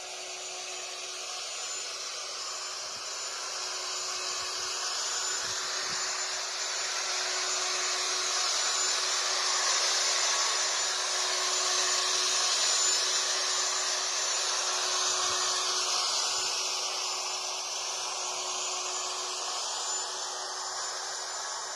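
Vacuum cleaner running steadily, a hissing whine with a faint steady hum under it, growing a little louder toward the middle and easing slightly near the end.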